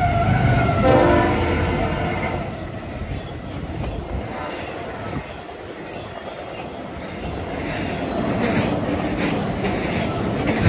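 Train horn sounding its chord, cutting off about a second and a half in. The train then rolls by, its wheels clicking over the rail joints more loudly toward the end.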